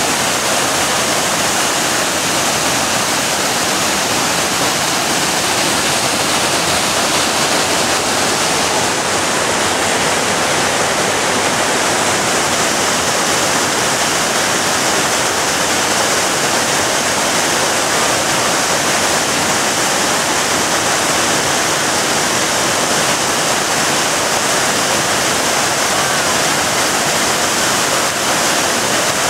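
Roaring River waterfall pouring and splashing over granite boulders: a loud, steady rushing of white water.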